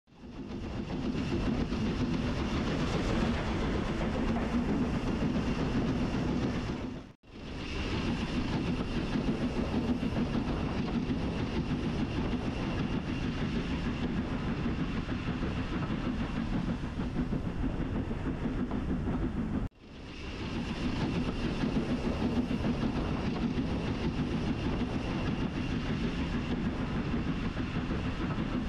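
Steam-hauled heritage train running along the line: a steady rumble of wheels on rail with some clickety-clack. It cuts out briefly twice, about seven seconds in and again about twenty seconds in.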